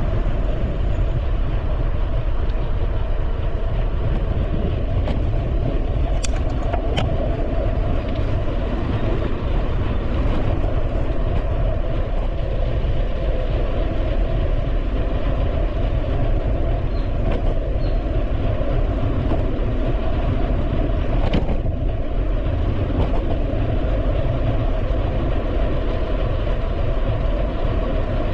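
Ride noise from a bicycle on a paved street: steady wind on the bike-mounted microphone and low tyre-and-frame rumble, with a few sharp clicks.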